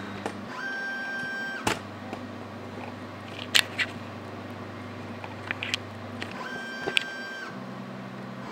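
X-Carve CNC machine's stepper motors during a dry run: a low hum that changes pitch a few times, with a steady pitched whine lasting about a second, once shortly after the start and again near the end, as the gantry moves. A few sharp clicks fall among them.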